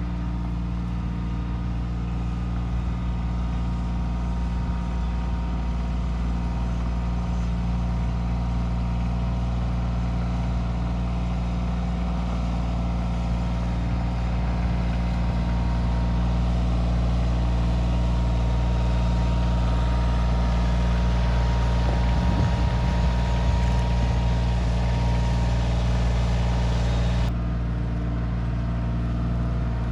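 Kioti CK2610 compact tractor's diesel engine running steadily while working with a heavy log on the grapple. The engine grows a little louder through the middle, and its higher part drops off suddenly near the end.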